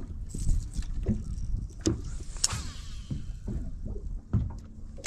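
Water lapping against a bass boat's hull over a steady low rumble, with scattered knocks on the deck. About two and a half seconds in comes the quick swish of a fishing-rod cast.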